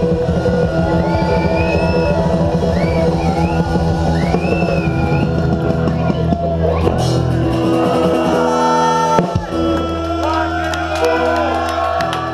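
Live band playing an upbeat rock song with electric guitar and drum kit. Near the end the playing thins out to a few held notes as the song closes.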